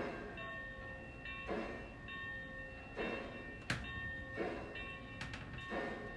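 Lionel O-gauge steam locomotive's sound system giving slow, rhythmic steam chuffs, one about every second and a half, with ringing tones between them. A sharp click sounds about midway.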